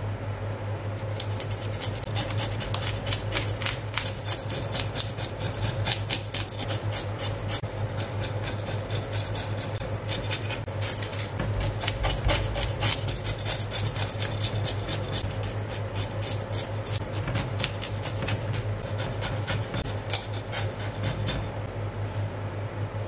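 A knife scraping the scales off a whole European sea bass: a long run of rapid rasping strokes that stops near the end.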